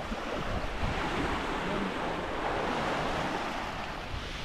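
Small waves breaking and washing up on a sand beach in a steady hiss, with wind buffeting the microphone.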